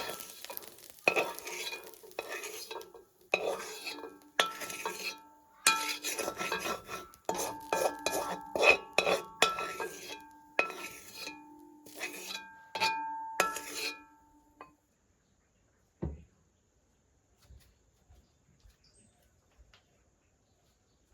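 A metal spoon stirring and scraping in a metal pan, with irregular knocks against the pan that ring out briefly. The stirring stops about fourteen seconds in, and a single knock follows a couple of seconds later.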